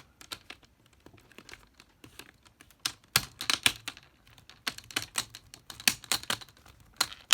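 Plastic display bezel of a Dell Precision 3530 laptop being pressed back onto the lid, its clips clicking and snapping into place in quick irregular runs of small clicks.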